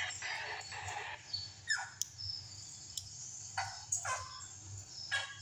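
A few short animal cries in the background, each dropping in pitch, with a couple of sharp clicks between them.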